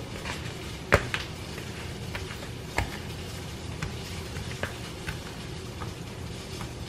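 A fork stabbing into raw sausage links on a tray, piercing the skins: one sharp tap about a second in, then lighter, irregular taps roughly every second, over a steady low background hum.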